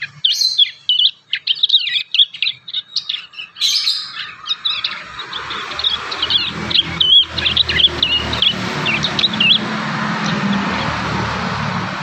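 Young prinias (prenjak) practising their song: rapid, jumbled chirps and trills that thin out after about nine seconds. A low rumble builds from about halfway in and takes over near the end.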